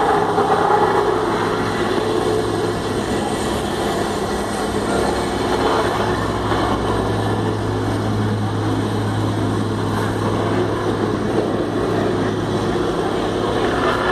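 An engine running steadily: a low, constant drone that grows stronger for a few seconds in the middle.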